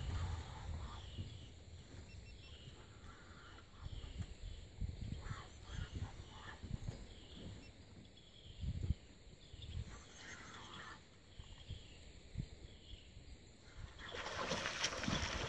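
Quiet riverside outdoor ambience: a faint high chirp repeats about once a second, with scattered low knocks and rumbles. A rush of hiss swells near the end.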